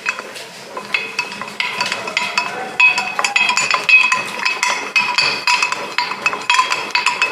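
Rapid, repeated clinking of crockery and cutlery: many light chinks a second, each with a short ringing tone.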